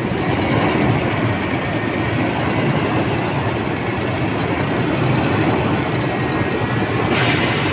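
Toyota Land Cruiser engine idling steadily, with its newly replaced power steering vane pump running.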